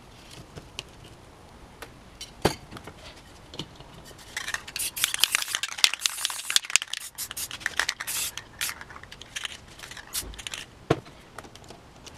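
Aerosol spray paint can of black paint in use, giving several seconds of dense hissing packed with rapid clicks and rattles. Sharp clicks of paper and cans being handled come before and after.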